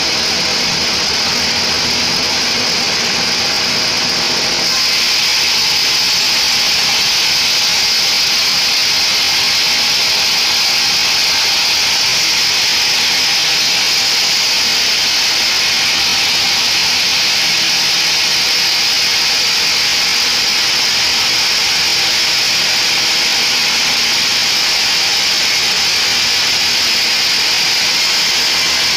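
Band sawmill running, its blade sawing through a mahogany log: a steady, loud, high hiss that steps up slightly in level about five seconds in.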